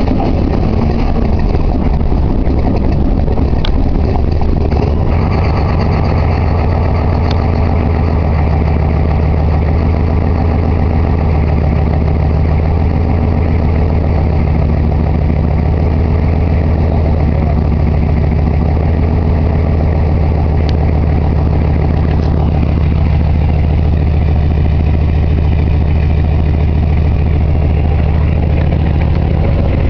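GM 6.5 L turbo diesel V8 running at idle just after a hard start. It is uneven for the first few seconds, then settles into a steady idle. The owner suspects the fuel solenoid or the batteries behind the hard starting.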